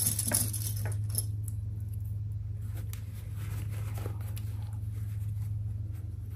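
Fabric being handled and folded by hand: soft rustling and a few light clicks, loudest right at the start, over a steady low hum.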